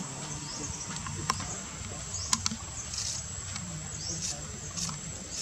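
Short high chirping animal calls repeating every half second or so over a steady high whine, with a few sharp clicks about a second and two seconds in.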